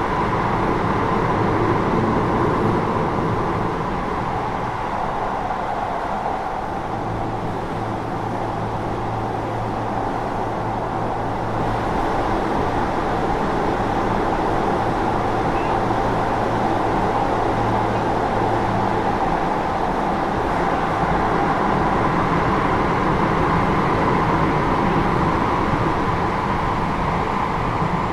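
Keio 8000 series electric train running, heard from inside the passenger car above its GTO-VVVF main controller: steady rolling and running noise. A steady low hum joins it from about a quarter of the way in until about two-thirds through.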